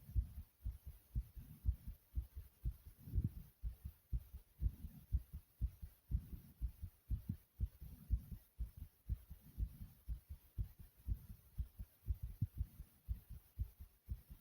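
A human heart pounding fast after running in place, each beat a low double thump, lub-dub, in a steady even rhythm.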